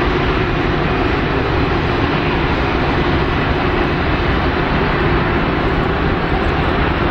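Jet engines of a Condor Airbus A330-900neo (Rolls-Royce Trent 7000 turbofans) running steadily as the airliner rolls past close by, an even noise with a faint steady hum and whine.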